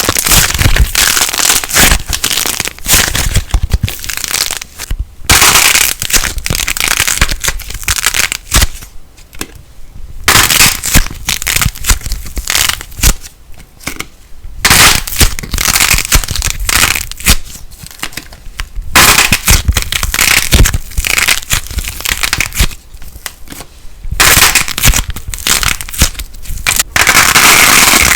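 Light plasticine slime crackling, in dense runs of tiny crackles and pops broken by short pauses.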